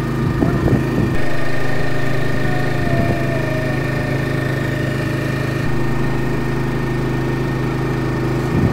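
Engine of a wooden river passenger boat running steadily under way: a low, even drone that gets a little louder about a second in.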